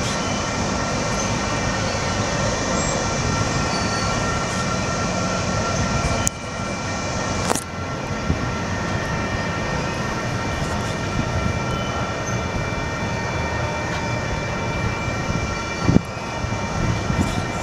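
Intermodal double-stack freight train's well cars rolling past, a steady rumble of steel wheels on rail with a few steady high tones ringing over it. There is a short knock near the end.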